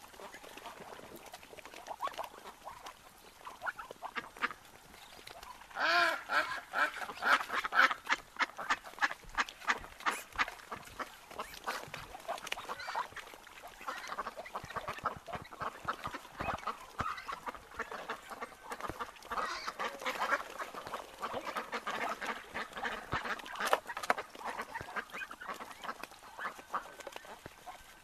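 A flock of wild ducks quacking and calling on the water, many short calls overlapping, with a loud burst of quacks about six seconds in and another busy stretch around twenty seconds.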